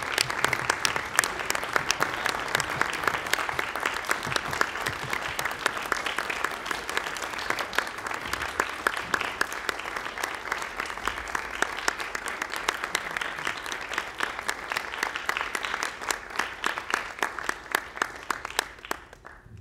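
Audience applause: many hands clapping densely, thinning out over the last few seconds and stopping near the end.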